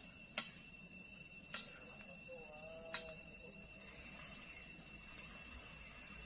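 Steady, high-pitched chorus of forest insects, with three sharp clicks about a second apart in the first half.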